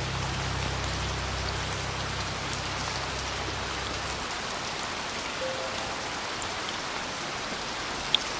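Steady rain falling on a surface, an even hiss of many drops. A low held musical note underneath fades out about halfway through.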